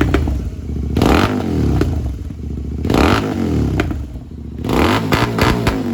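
Royal Enfield Continental GT 650 parallel-twin revved three times through an Offtrail Moto Hyperstroke S1 Pro slip-on exhaust, with pops and crackles as the revs drop between each blip.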